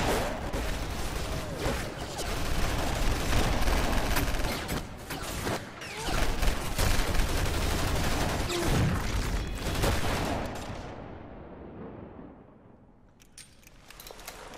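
A volley of gunfire from a line of gunmen firing at once: a dense, continuous barrage that runs about ten seconds and then dies away, with a few faint clicks near the end.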